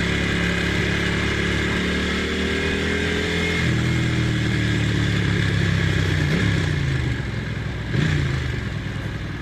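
Ducati Monster's V-twin engine pulling under way, its note slowly rising, then dropping to a lower pitch about three and a half seconds in, as with a gear change. Later it eases off, with two short rises in engine pitch near six and eight seconds, over steady wind noise.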